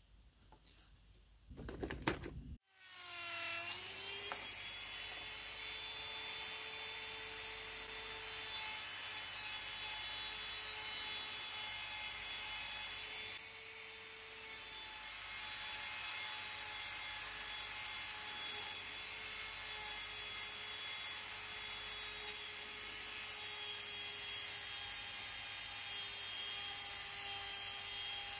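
After a few clicks, a handheld rotary tool spins up about two and a half seconds in with a rising whine, then runs steadily with a high whine as its felt polishing wheel buffs a brass burner ring.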